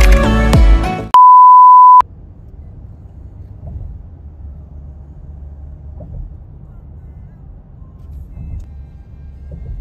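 Electronic background music stops about a second in. A loud, steady single-pitch beep follows for under a second, then the low, steady rumble of a car driving on the road.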